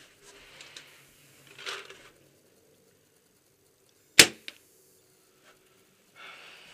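A single loud shot from a paintball marker about four seconds in, followed by a fainter click, with soft rustling before and after.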